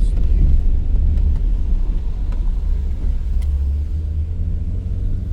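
Steady low rumble of a car on the move, engine and road noise heard from inside the vehicle.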